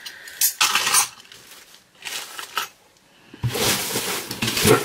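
Packaging and small items being handled while rummaging through an unboxing box: a few short rustles and knocks, then steady rustling from about three and a half seconds in.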